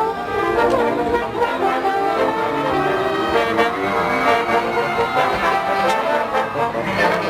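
A marching band playing a loud, brass-heavy tune, the horns moving through a run of notes with occasional drum strokes.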